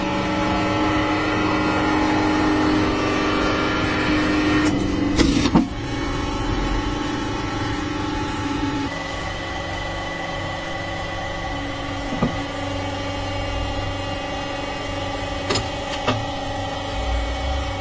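Hydraulic press running with a steady drone from its pump and motor, its tone shifting about nine seconds in. There is one loud sharp crack about five seconds in, and a few short clicks later.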